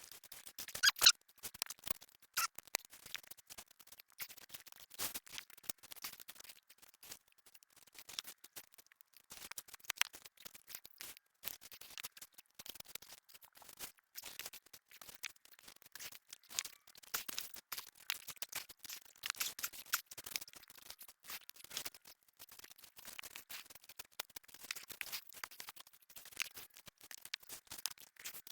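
Irregular crackling, scraping and snapping of soil, roots and vines being dug through and pulled by hand while lifting sweet potatoes, with a couple of sharper snaps about a second in.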